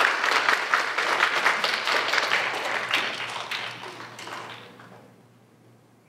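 Congregation applauding, a dense patter of many hands clapping that fades away and has died out about five seconds in.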